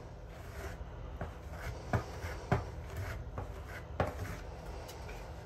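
Bondo all-purpose putty being smeared and scraped by hand with a spreader over a fiberglass patch on a fiberglass bathtub: a soft scraping rub, with three sharp clicks about two, two and a half and four seconds in.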